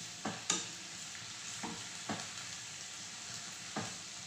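Cabbage and mixed vegetables sizzling in a frying pan as a wooden spatula stirs them, with a steady frying hiss. The spatula scrapes and knocks against the pan about five times.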